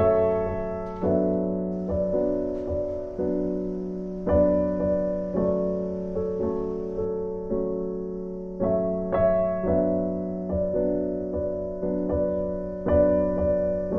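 Background music: slow, gentle piano, with notes and chords struck about once a second and left to fade.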